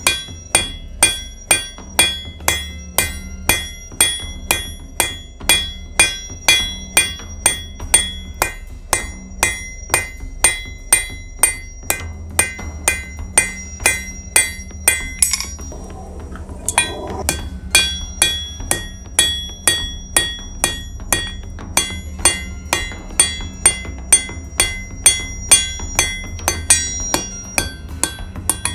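Hand hammer striking a hot mild-steel spearhead blade on an anvil at a steady pace of about two blows a second, each blow leaving the anvil ringing. The blows pause for about two seconds about halfway through, then resume.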